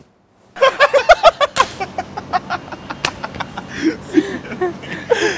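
A group of young men laughing loudly together in quick, repeated bursts that start about half a second in and tail off into lighter chuckles. A single sharp smack sounds about three seconds in.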